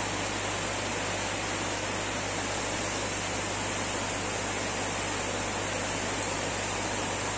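Steady rushing of moving water at the koi tanks, with a low steady hum underneath that does not change.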